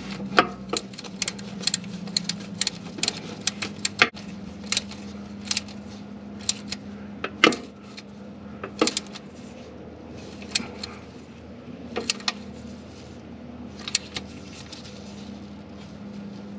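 Ratchet wrench clicking as a socket tightens a modified plug into the engine, with sharp metallic clicks coming quickly in the first half and then spaced further apart.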